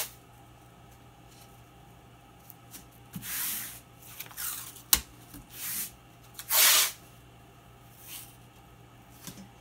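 Blue painter's tape being pulled off the roll in several short rips, the loudest about two-thirds of the way through, with a sharp tap about halfway.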